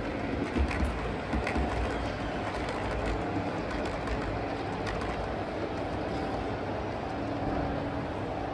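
O gauge model train running along the layout's track: a steady hum with faint whining tones over a low rumble, with a few light clicks in the first few seconds.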